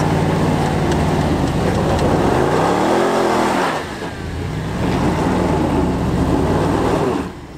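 Range Rover Sport engine revved hard under load while the tyres spin in loose dirt, failing to get traction on the slope. The revs rise and fall about three seconds in, ease off briefly near four seconds, then pick up again before dropping away near the end.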